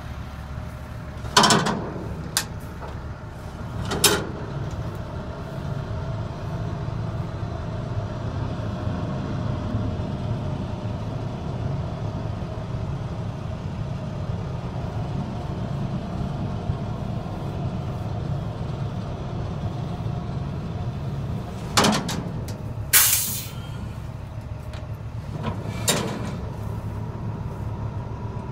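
International DT466 turbo diesel truck engine running at a steady low idle. A few sharp knocks come near the start and again late on, with a short hiss about three quarters of the way through.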